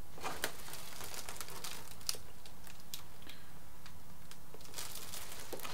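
Scattered light clicks and taps of small parts being handled by hand: an RC servo arm and pushrod with its plastic rod end being tried in place, with a quick run of clicks near the end. A low steady hum sits underneath.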